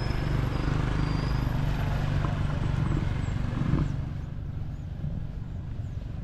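Low, steady engine hum of a motor vehicle over outdoor background noise. It drops away about four seconds in.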